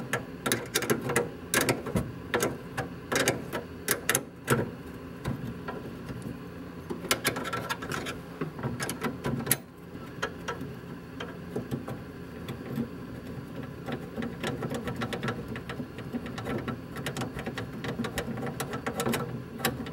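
Wrench taking out the two bolts of a stock cowl vent handle: rapid, irregular metallic clicks and clinks of tool on bolts and parts.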